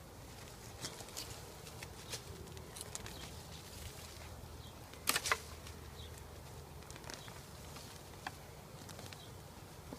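A honeybee swarm buzzing steadily, with scattered sharp clicks and snaps of hand clippers working at a branch, the loudest a double snap about halfway through.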